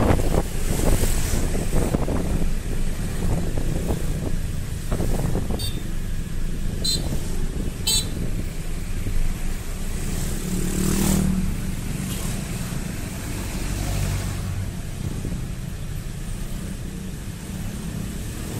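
Road traffic heard from a moving motorcycle among other motorbikes: a steady low engine and road rumble with wind buffeting on the microphone. A few brief high chirps come about six to eight seconds in, and a louder passing engine about eleven seconds in.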